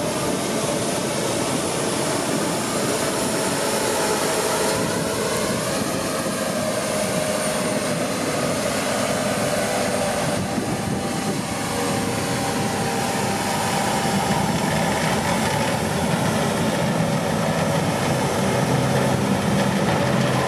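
Holmer T4-30 self-propelled sugar beet harvester running steadily at work, its engine and machinery making a dense, continuous noise with a whine that rises and dips a few seconds in.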